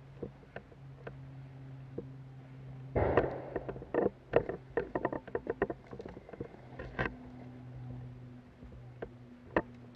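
Airsoft gunfire: sharp pops in an irregular quick run about four seconds in, with single cracks near the end, over a steady low hum.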